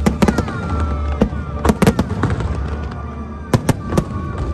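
Aerial fireworks shells bursting: a dozen or so sharp bangs in quick clusters, near the start, about halfway through and again toward the end.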